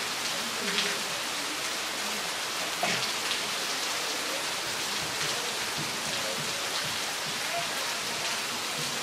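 Steady rain falling onto a flooded road and puddled ground, an even hiss of water with a couple of slightly louder patters about one and three seconds in.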